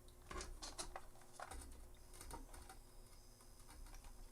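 Faint, scattered light clicks and taps of small tools and parts being handled at a workbench during desoldering, a few every second or so with pauses between.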